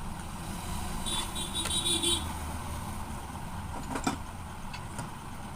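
Motor vehicle running with a steady low rumble, a brief high-pitched tone about a second in and a short click about four seconds in.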